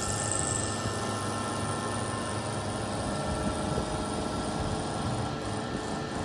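Vertical milling machine running, its end mill cutting small metal pieces: a steady mechanical hum with several steady tones, and a brief high hiss near the start.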